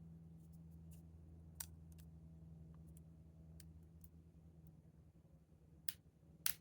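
A few faint, scattered clicks of a lock pick and tension wrench working in a PACLOCK 90A Pro padlock's keyway, with two sharper clicks near the end, over a low steady hum.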